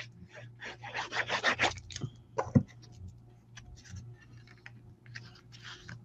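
Paper being rubbed and pressed down by hand as a cardstock layer is mounted onto a card: a quick run of rubbing strokes, a single sharp thump about two and a half seconds in, then light paper scuffs and taps.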